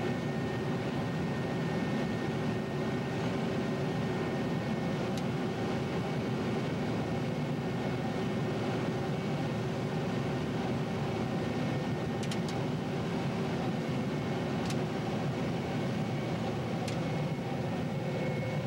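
John Deere 9600 combine running steadily while harvesting soybeans, heard as an even drone from inside the cab, with a few faint clicks.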